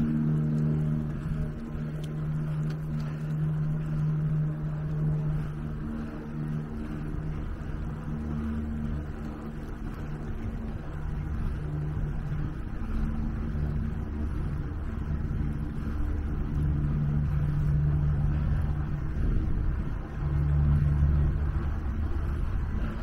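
Electric bicycle's motor humming under load on a steep uphill climb; the hum fades and comes back several times over a low rumble.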